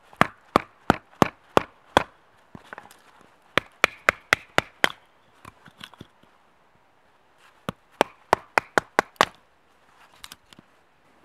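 Wooden baton striking the spine of a knife set into a small log, batoning it to split firewood. Three runs of sharp knocks, about three a second, with short pauses between the runs.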